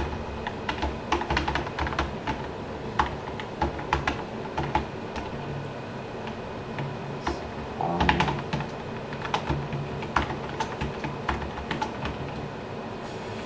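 Typing on a computer keyboard: irregular key clicks in quick runs, with a short lull about two-thirds of the way through the first half before the typing picks up again.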